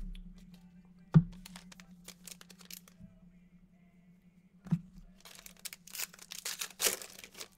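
Foil wrapper of a Contenders Draft basketball card pack being torn open: a dense crinkling rip, loudest near the end. Two sharp knocks come first, about a second in and near five seconds.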